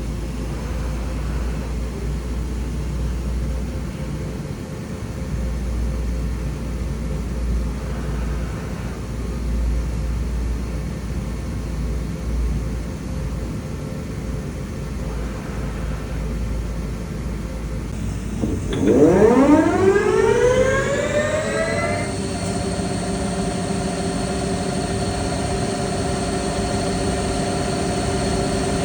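Weiler E90 CNC lathe with a steady low machine hum, then about two-thirds of the way through its spindle drive spins up with a rising whine that settles into a steady high whine.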